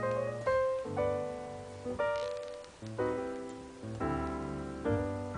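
Background piano music: a run of notes and chords, each struck and left to fade.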